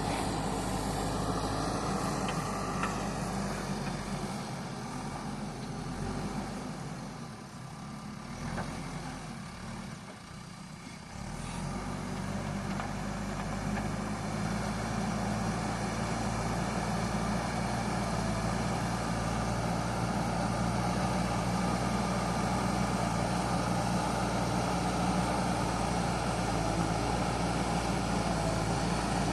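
JCB backhoe loader's diesel engine running steadily. It drops away for several seconds about a third of the way in, then comes back and runs steadily on.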